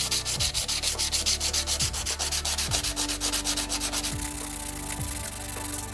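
Coarse sandpaper rubbed rapidly back and forth by hand over the back of a small round glass mirror, scratching off the silvered coating. It makes fast, regular rasping strokes, about nine or ten a second, that smooth into a more even rasp about four seconds in.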